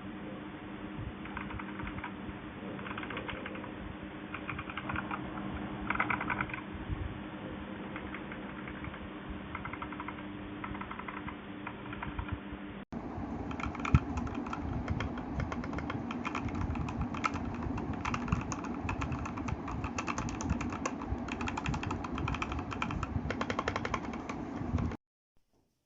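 Typing on a Redragon K617 Fizz 60% mechanical keyboard: a fast, continuous clatter of keystrokes. About 13 seconds in, the sound cuts to a brighter, slightly louder recording of the same typing, which stops suddenly near the end.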